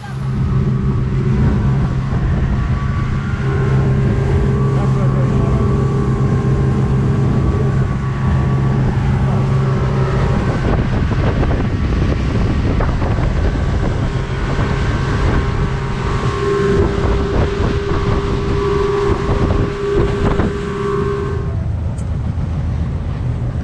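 Motorboat engine running at a steady speed, with wind buffeting the microphone. The engine drone stops about 21 seconds in, leaving wind and water noise.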